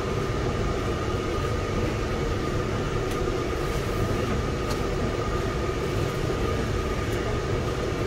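Fendt 720 tractor running steadily on the move, heard from inside the cab: an even low rumble with a steady high whine over it.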